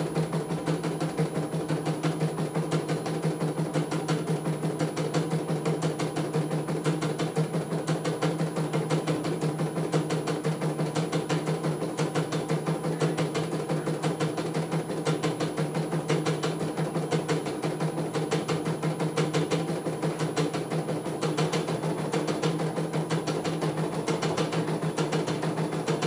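CNY E900 computerised embroidery machine stitching a design: the needle bar beats out a fast, even run of strokes over a steady motor hum as the hoop carriage moves the fabric.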